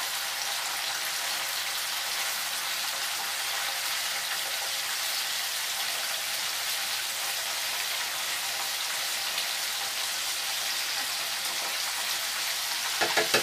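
Marinated chicken pieces shallow-frying in oil in a frying pan over a low flame, a steady sizzle. Near the end come a few quick clicks of tongs against the pan.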